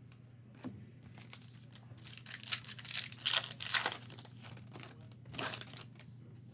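Plastic wrapper of a football trading card pack torn open and crinkled in the hands, in two bouts of crackling, the second shorter, over a low steady hum.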